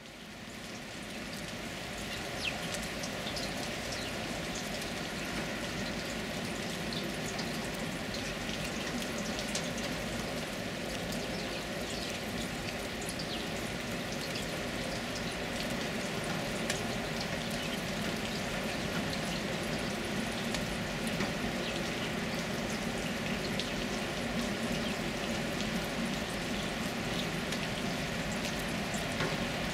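Steady, even water noise sprinkled with many small scattered ticks.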